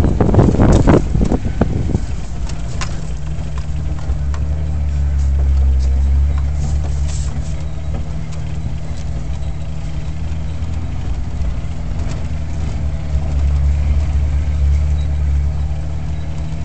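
Jeep Wrangler engine running steadily at low speed on a dirt track, heard from inside the open cab. Its low drone swells twice, about five seconds in and again about thirteen seconds in. The first two seconds carry a louder rough noise over it.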